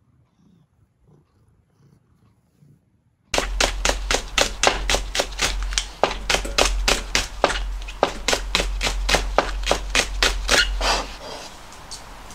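Kitchen knife chopping green onions on a cutting board: rapid, even chops about four to five a second, starting a few seconds in after near silence. The chopping stops about a second before the end, giving way to softer rustling as the cut onions are gathered by hand.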